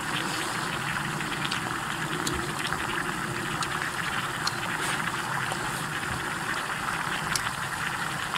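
Eating sounds: chewing, with scattered faint clicks, over a steady hiss.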